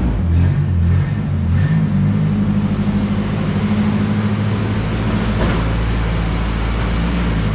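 Nissan Hardbody pickup's engine running as the truck is driven, the engine note rising and falling in the first couple of seconds, then holding steady.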